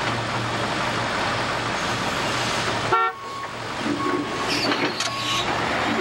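A large forklift's engine running loud and close. About three seconds in, a short toot of its horn sounds and the engine noise drops. After that come a few faint single beeps, like a back-up alarm, and some light clanks.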